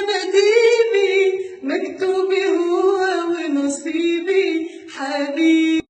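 A woman singing solo and unaccompanied, a slow, ornamented melody with long held notes that bend in pitch. The voice cuts off suddenly at the very end.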